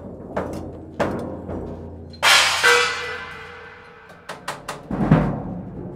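Film-score percussion: scattered deep drum hits, with a loud crash about two seconds in that rings and slowly fades, then a quicker cluster of drum hits near the end.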